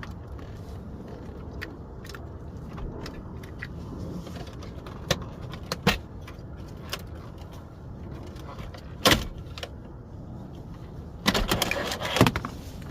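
Hand work on a car's steering column: scattered clicks and knocks of plastic trim and switch parts being pried and handled, with a burst of rattling clatter near the end.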